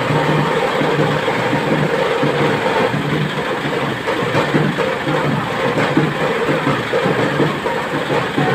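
An engine running steadily close by: a continuous low drone under dense street noise.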